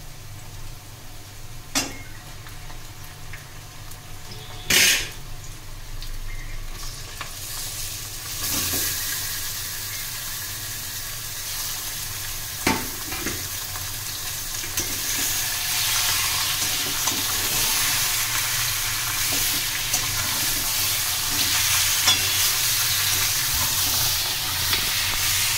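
Marinated chicken pieces frying in hot oil in an aluminium kadai, stirred with a metal spatula. The sizzling swells about eight seconds in and grows louder after about fifteen. Three sharp knocks of metal on the pan come near two, five and thirteen seconds, the one near five seconds the loudest.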